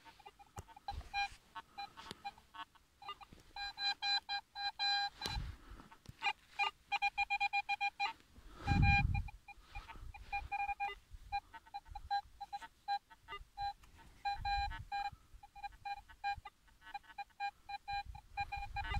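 Metal detector beeping: a mid-pitched tone sounding in short pulses and quick runs of beeps as the target in the dug soil is checked over the coil. A brief low rumble of handling noise comes about halfway through.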